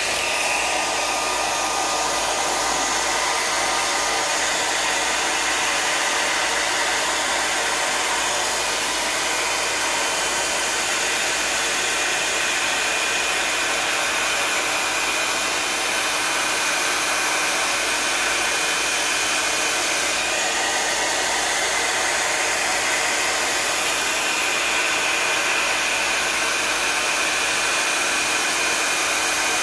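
Hand-held hair dryer running continuously, a steady rush of blown air and motor whir, used to push wet acrylic paint across a canvas.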